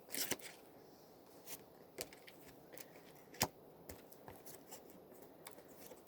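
Oracle cards being shuffled and handled: a brief papery riffle at the start, then a few separate soft snaps of cards being slipped and drawn from the deck.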